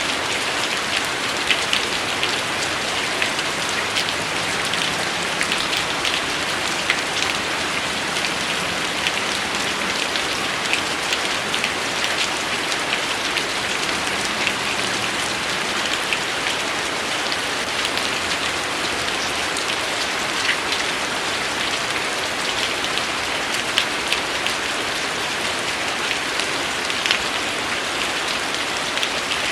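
Steady rain falling, an even hiss with many individual drops ticking sharply through it.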